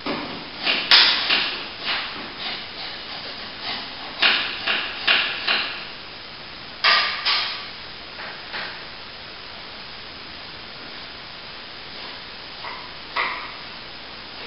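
Short, sharp strokes of a plasterer's brush and steel trowel working cornice cement into a plaster cornice mitre. They come in three quick runs of a few strokes each in the first half, then two fainter strokes near the end, over a steady background hiss.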